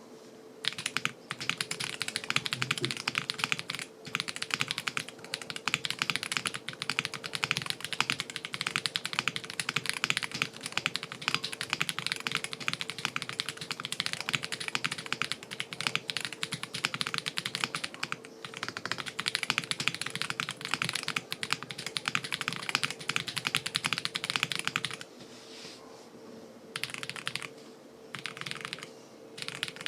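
Fast, continuous typing on a Qwertykeys QK65 mechanical keyboard with stock Akko V3 Cream Yellow linear switches in an aluminium plate, giving a clacky keystroke sound. The typing stops about 25 seconds in, followed by a few short bursts of keystrokes near the end. A faint steady hum runs underneath.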